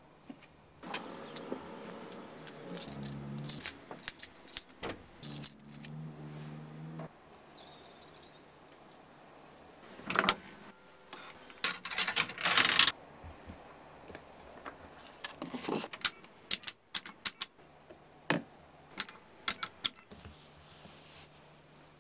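Small metal objects jingling and clinking, with irregular sharp clicks and handling sounds and several louder bursts of jingling.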